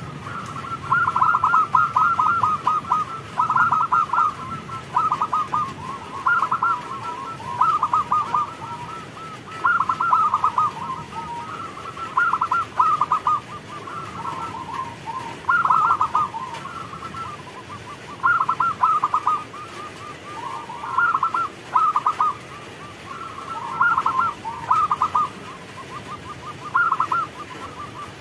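Zebra dove singing: repeated phrases of rapid staccato cooing notes, each phrase a second or so long and coming every few seconds.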